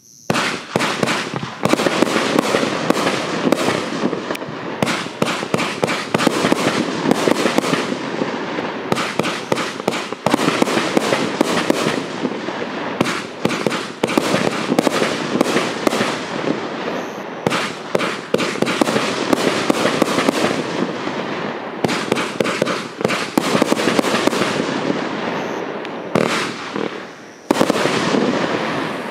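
A 500 g, 35-shot consumer firework cake firing shot after shot, its launches and bursts overlapping in a dense run of sharp pops. There is a short lull near the end before a last loud volley.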